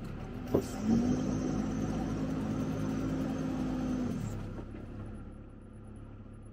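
Sherp amphibious ATV's diesel engine, heard from inside the cab, running under a steady low hum; about a second in it picks up to a higher, steady pitch, holds there for about three seconds, then drops back. A single sharp click comes just before it picks up.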